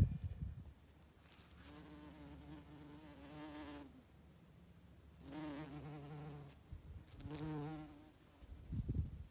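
A bumblebee buzzing in flight: three spells of steady low buzzing, the last few seconds ending with a couple of soft thumps.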